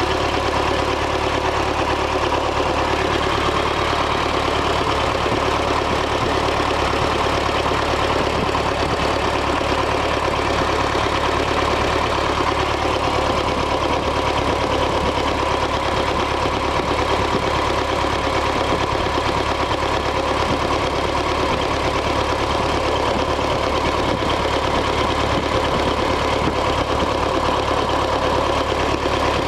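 ZIL Bychok truck's four-cylinder diesel engine idling steadily. It runs rough and shakes because the fourth cylinder is not firing, even with freshly rebuilt injectors.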